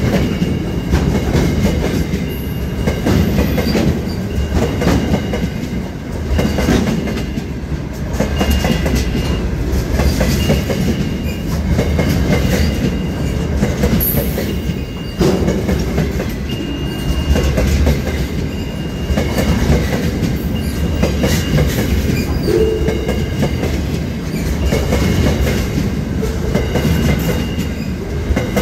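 A freight train of covered hopper wagons rolling past: loud, steady wheel and rail rumble with the clickety-clack of wheels over rail joints, and short high-pitched squeals that come and go.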